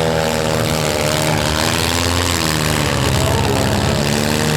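Four- and six-cylinder demolition derby car engines running and revving together, several engine notes overlapping and rising and falling in pitch.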